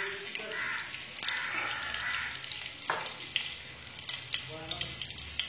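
Oil sizzling in a cooking pan while the food is stirred with a spatula. The steady frying hiss is broken by scattered clicks of the spatula against the pan, the sharpest about three seconds in.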